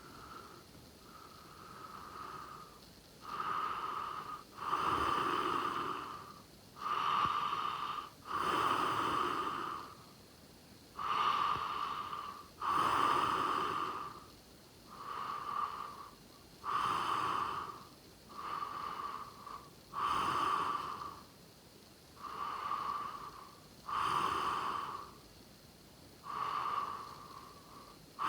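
A sleeping person snoring, with a rasping sound on each breath in and out, about one every two seconds. Each breath has a whistling edge. The snores are soft for the first few seconds and grow louder from about three seconds in.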